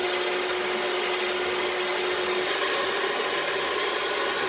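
Electric hand mixer running steadily on a constant motor whine, its beaters churning mashed sweet potato into a wet, frothy mixture in a glass bowl.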